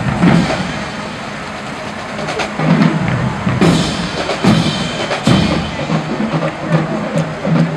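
Marching band drumline playing a street cadence as the band marches: a steady low bass-drum beat about twice a second, with several sharp drum cracks from about two seconds in.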